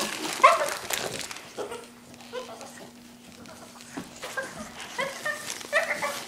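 A dog mouthing and nosing a plush soccer-ball toy, with clusters of short, high squeaks about half a second in, around two seconds in, and again through the second half.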